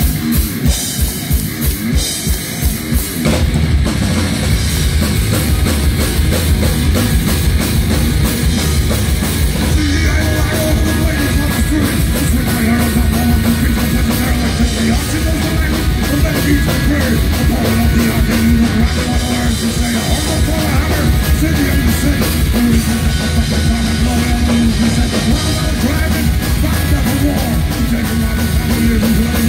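Live heavy metal band playing an instrumental intro on distorted electric guitars, bass and drum kit. It opens with a few seconds of evenly spaced drum hits before the full band comes in about three seconds in, with a held guitar melody line from about twelve seconds on.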